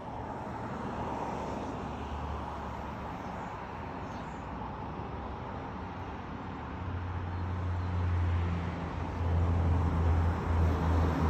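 Steady outdoor road-traffic noise, with a louder low rumble from about seven seconds in that breaks off briefly a few times.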